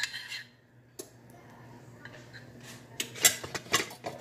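A metal spoon scraping the last of the topping out of a ceramic bowl, then a single click and, near the end, a short run of clinks and clatters of dishes and utensils.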